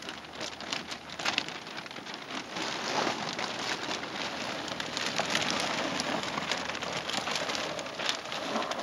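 Large sheet of thin plastic being unfolded and shaken out by hand, rustling and crackling continuously with many small sharp crinkles.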